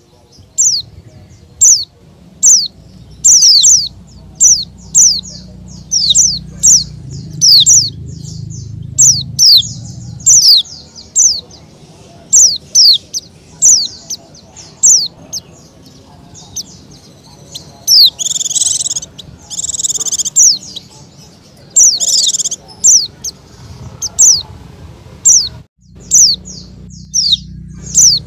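A bird chirping over and over: short, high chirps that fall in pitch, often in pairs, one or two a second, with a few harsher squawks about two-thirds of the way through, over a steady low hum.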